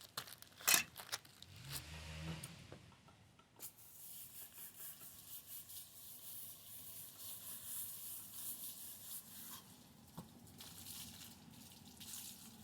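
Hand tool scraping and smoothing fresh, wet concrete patch material, a run of quick, rasping strokes that sets in a few seconds in, after a couple of sharp clicks.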